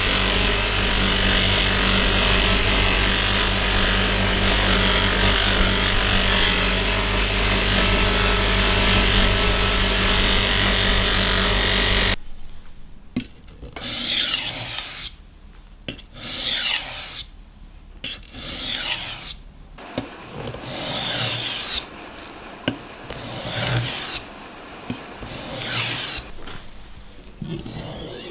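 A motor-driven grinder running steadily with a hum and an abrasive hiss, cutting off abruptly about twelve seconds in. After that comes a series of separate rasping strokes by hand, each a second or two long, with short gaps between.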